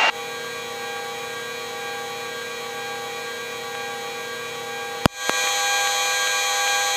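Twin-turbine engines and rotor of a Eurocopter EC135 helicopter running steadily at full rotor speed on the ground, a steady whine of many held tones heard inside the cockpit. A sharp click about five seconds in, after which the sound is louder.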